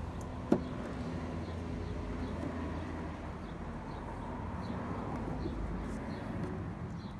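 Hands working on a lawn mower: one sharp click about half a second in, over a steady low hum, with faint bird chirps.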